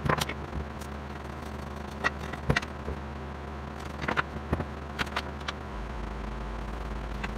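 Scattered knocks and clicks of thin wooden slats and bar clamps being handled and set on a workbench, about ten in all, over a steady low hum.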